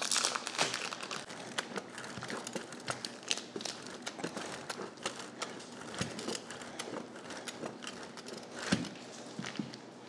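Plastic wrapping on a block of cheese crinkling as it is cut open and handled, with irregular small rustles and clicks and one sharper knock near the end.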